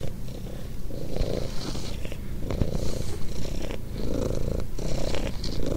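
A domestic cat purring: a continuous low rumble that swells and eases in level every second or so.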